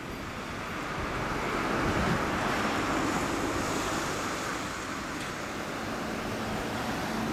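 Kawasaki Zephyr 1100's air-cooled inline-four running steadily through a Kerker aftermarket exhaust, growing a little louder over the first couple of seconds.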